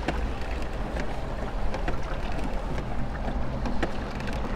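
A wooden rowing boat being rowed with a pair of oars: short knocks and splashes here and there over a steady wind rumble on the microphone.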